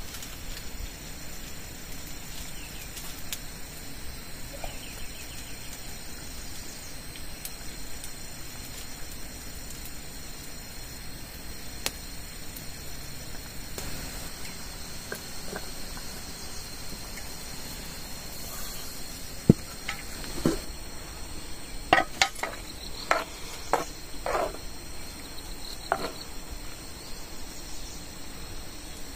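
Steady high-pitched insect chorus. In the second half comes a run of sharp clicks and knocks, the loudest about two-thirds of the way through.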